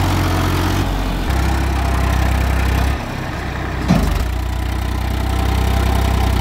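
Tractor diesel engine running under load, pulling a loaded trailer through soft mud. Its note shifts about a second in and sags briefly around three seconds before picking up again, with a short thump just before four seconds.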